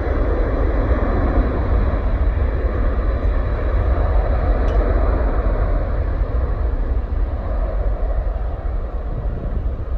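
Distant jet airliner engines running on the runway, a steady rumbling roar with no clear pitch, easing slightly near the end. Wind buffets the microphone throughout.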